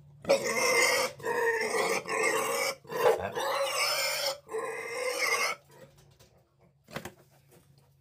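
A restrained pig squealing loudly in a string of long, harsh squeals while it is held down and its wound treated, falling quiet about two-thirds of the way through, with one short squeal near the end.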